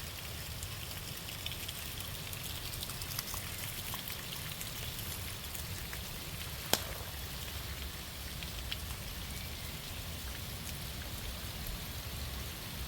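Rain falling steadily as a dense patter of small drops over a low rumble, with one sharp tap about seven seconds in.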